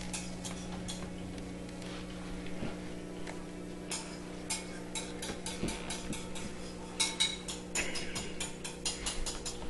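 A cat moving about on a small aquarium: quick runs of light clicks and taps on plastic and glass, one about four seconds in and a longer run near the end, over a steady low hum.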